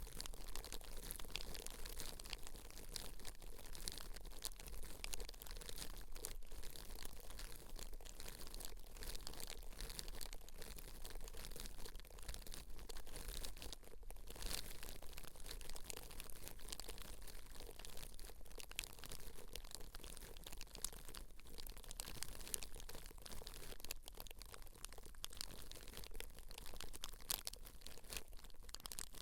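Close-miked scalp-care ASMR: a steady, dense, crunchy crackling rustle of hair being worked at the scalp, with a faint low hum underneath.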